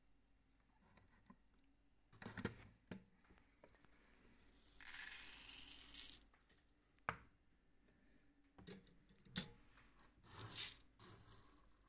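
Small lead shot (number 10) rattling into a brass balance-scale pan, then poured out of the tipped pan in a steady rushing trickle for about a second. Several sharp metallic clicks and rattles follow near the end.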